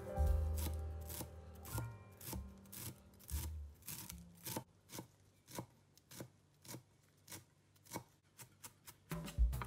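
Knife chopping food on a cutting board in steady strokes, about two a second, quickening just before the end.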